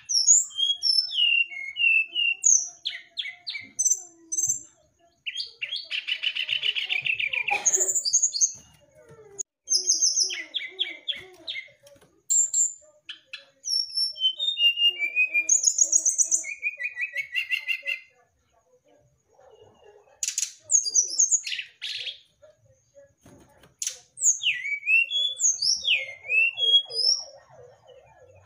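Brown-chested jungle flycatcher singing a varied song of quick chirps, whistled up-and-down glides and short trills, broken by brief pauses, with a buzzy rattle about a quarter of the way in.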